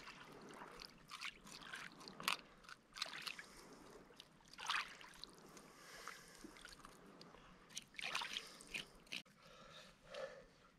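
Faint, irregular wet scraping and squelching of a fish being cleaned by hand, a knife scraping fat and gut out of its belly cavity.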